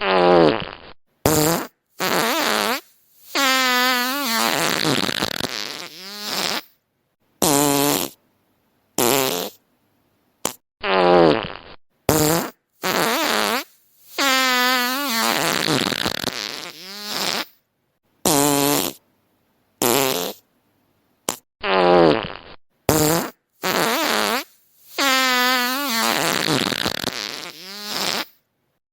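Fart sound effects played one after another with short silent gaps: some brief, others about three seconds long with a wavering pitch. The same sequence repeats about every eleven seconds.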